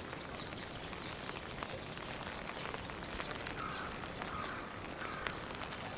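Steady outdoor background noise with a few short bird chirps in the second half and scattered faint ticks.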